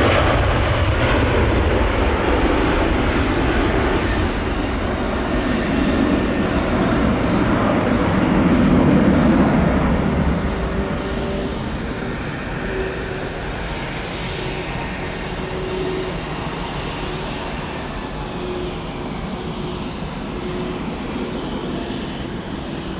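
Jet airliner's engines passing, loud at first with a swell about eight to ten seconds in, then dying away to a lower, steady sound.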